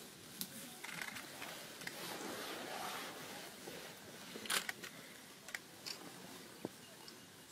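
Camera shutters clicking now and then in a hushed crowd, the loudest click about four and a half seconds in, over a faint steady background.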